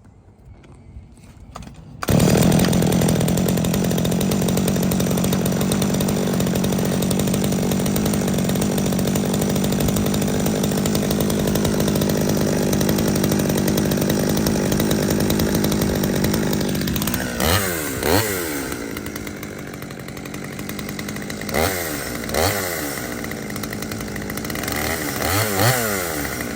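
Holzfforma G111 two-stroke chainsaw starting up about two seconds in and running fast and steady. About seventeen seconds in it drops to a lower speed and is revved up and back down several times.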